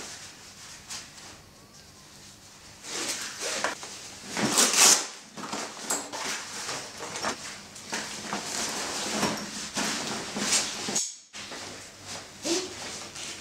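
Mission Workshop rolltop messenger bag being packed and handled: its fabric rustles and scrapes, and straps and items knock against it, in irregular swishes. The loudest is about five seconds in, with a brief break near the end.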